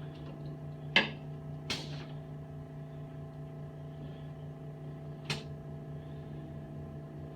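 Small air compressor running with a steady hum as it builds pressure for a pneumatic chiropractic table, which has not yet reached working pressure. A sharp click comes about a second in, a brief hiss just after, and another click around five seconds in.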